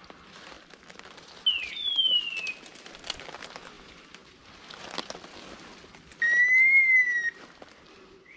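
A dog whistle blown: two short falling whistles about one and a half seconds in, then one long, steady blast of about a second near the end, the loudest sound. Light crackling of brush and twigs between the whistles.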